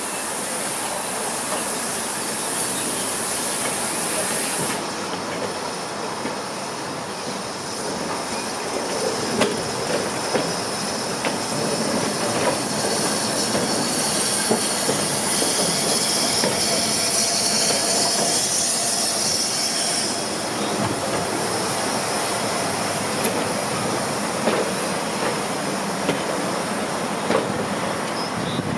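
BR Fairburn 2-6-4 tank steam locomotive and its coaches rolling slowly into the station. Steam hisses for the first few seconds, then the coach wheels click over the rail joints with some high wheel squeal as the train passes close by.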